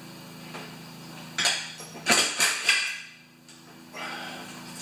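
A quick run of four or five metal clanks and rattles about a second and a half in, from the chain and hooks of a chain hoist being handled overhead, over a steady low hum.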